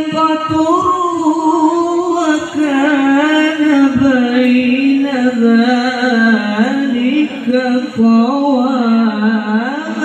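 A male qari reciting the Quran in melodic tilawah style through a microphone and PA. He holds long ornamented notes with wavering, sliding trills, pausing briefly for breath twice, and his pitch sinks lower in the second half.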